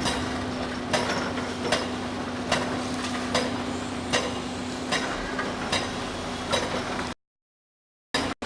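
SEKO SVR600 excavator-mounted vibro-ripper working rock, with a steady hum and a sharp knock repeating about every 0.8 seconds. The sound cuts out abruptly for about a second near the end, then resumes.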